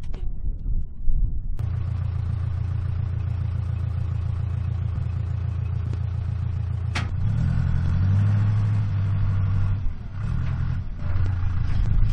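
An engine comes on abruptly about a second and a half in and runs steadily, then revs up for a few seconds past the middle and drops back.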